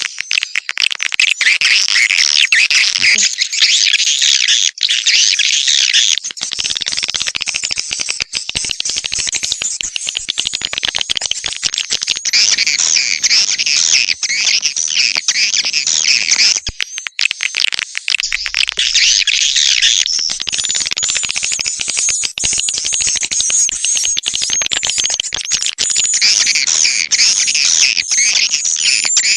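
Swiftlet call track used to lure wild swiftlets into a swiftlet house: a dense, continuous chorus of many swiftlets twittering and chittering at once, high-pitched and without pause.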